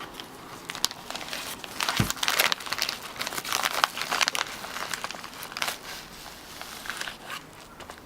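Crinkly packaging from a mailed parcel being handled and unwrapped, giving irregular crackling and rustling, with a single low thump about two seconds in.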